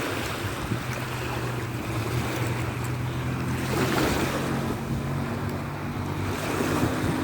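Moving water with wind buffeting the microphone, over a steady low hum; a brief louder rush of water about four seconds in.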